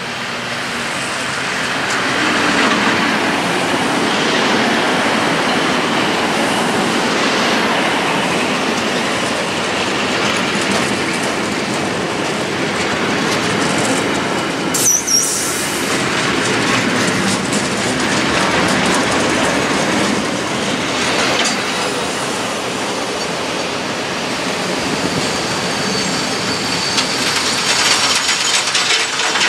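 Freight train of open coal wagons behind an ET41 electric locomotive rolling past close by, its wheels clattering over the rail joints as it slows to a stop. A brief high wheel or brake squeal comes about halfway through, and a steadier high squeal near the end.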